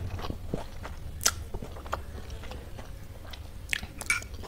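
Close-miked chewing of a mouthful of spicy chow mein noodles: soft, wet mouth clicks and smacks, with a sharper click about a second in and a few more near the end.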